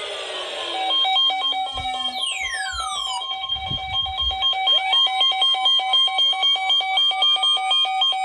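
Electronic alert tones: a siren-like wail sliding down in pitch, then rapid pulsing beeps alternating between two pitches, joined about five seconds in by a tone that rises and holds; the whole signal cuts off suddenly at the end.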